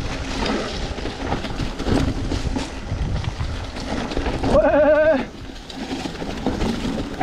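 Mountain bike rattling and clattering as it rolls over a rough trail, with wind rumble on the microphone. About four and a half seconds in comes one short wavering call lasting under a second.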